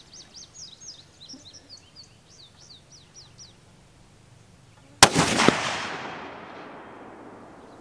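A single shot from a Springfield 2020 Redline .308 bolt-action rifle with a 16-inch barrel and radial muzzle brake, about five seconds in: a sharp crack that echoes and fades over a couple of seconds, with a fainter knock about half a second after it. Before the shot a bird chirps in a quick run of falling notes.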